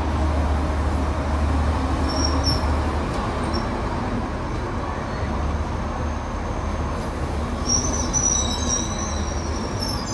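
Passenger train coaches rolling past: a steady low rumble of wheels on rail, with a few brief high-pitched squeals, clearest near the end.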